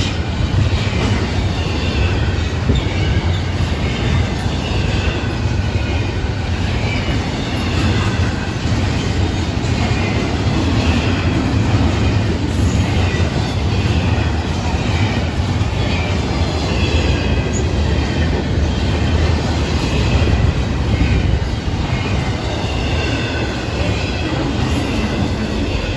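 Florida East Coast Railway intermodal freight train rolling past: a steady rumble of wheels on rail, with short, wavering high-pitched wheel squeals coming and going.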